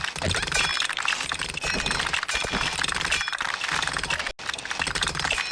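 Small plastic LEGO pieces clattering and clicking as hands sort through and handle them, a dense run of small clicks.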